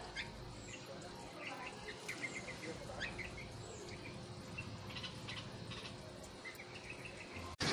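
Juvenile bulbul giving short, high chirps in small scattered clusters, the begging calls of a fledgling asking for food.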